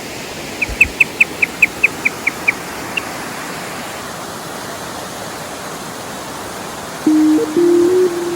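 Steady rushing of a waterfall. In the first three seconds comes a quick run of about ten short high chirps, falling slightly in pitch. About seven seconds in, electronic music with held synthesizer notes starts.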